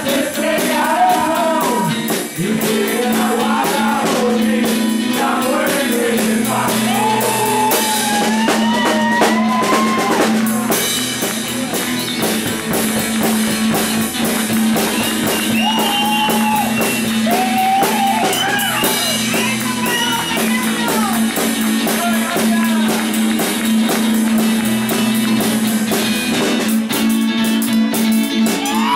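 Live acoustic rockabilly: a strummed acoustic guitar and a small drum kit played with sticks, with cymbals, under a male voice singing.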